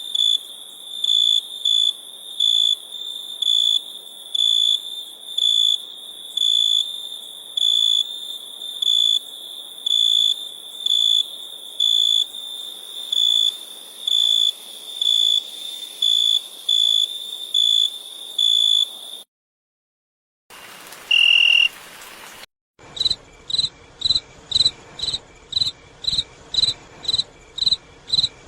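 Crickets chirping: a high, regular chirp repeating about one and a half times a second, cut off abruptly about 19 s in. After a short gap and a brief, lower high-pitched trill, another cricket chirps faster, about two and a half chirps a second.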